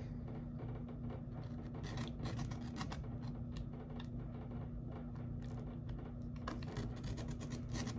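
Utility knife blade drawn again and again through eighth-inch leather on a plastic cutting board: a run of short, faint, scratchy cutting strokes, the blade riding a shallow scored path until it goes through.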